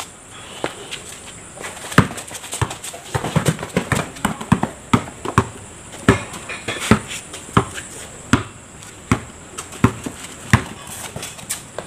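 Basketball being dribbled on a concrete court: sharp bounces at an irregular pace, about one or two a second, crowding closer together in places as the players move.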